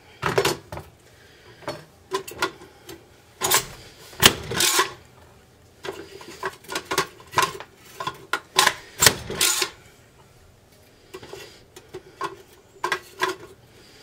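Spring-loaded plunger vegetable slicer (a Vegematic with its large slicing blade) being pressed down again and again, its plastic plunger slamming and clacking as it pushes onion wedges through the blades. The clacks come in uneven clusters with short pauses between.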